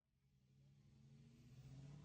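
Faint low hum of a car engine, fading in and holding a steady pitch.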